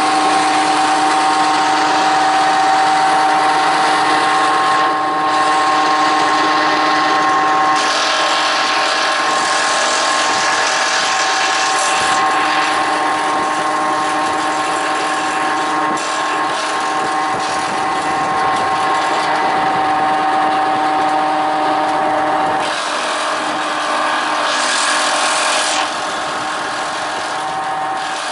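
Homemade electric-motor branch chipper running with a steady whine, with rougher, noisier stretches about eight seconds in and again near the end as branches are fed in and chipped.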